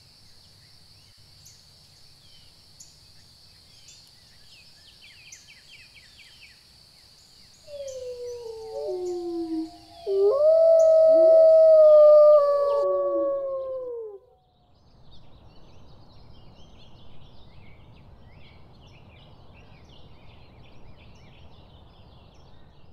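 Gray wolves howling, several long gliding howls that overlap, starting about a third of the way in and lasting about six seconds. Before them a steady high buzz with faint chirps, and after them a faint hiss with faint chirps.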